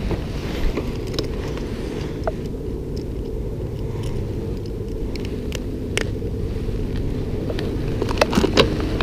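Steady low rumble of wind buffeting the microphone, with a few small sharp clicks and taps from the metal pliers and handling while a hook is worked out of a bass's mouth; the clicks bunch together near the end.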